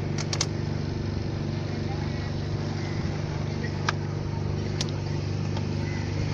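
A small passenger boat's motor running steadily, with a few sharp clicks near the start and about four and five seconds in.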